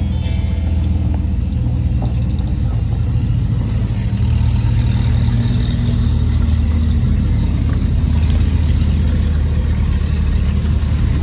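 Car engine running steadily under way, with road noise. The engine rises in pitch and gets louder about four seconds in.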